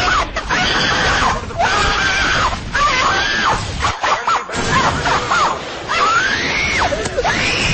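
Meme screaming sound effect: a run of high-pitched screams, each rising and falling in pitch, one after another over a noisy background, with one longer scream near the end.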